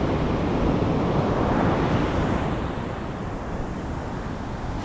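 Ocean surf washing up a beach, with wind buffeting the microphone; the wash swells over the first two seconds and then eases off.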